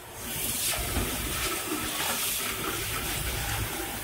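Tap water pouring steadily into a steel pot of biryani rice, starting just after the beginning, to wash the rice.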